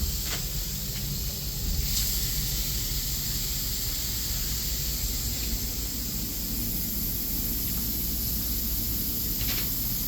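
Water running steadily from a bathroom sink faucet into the basin, a continuous hiss.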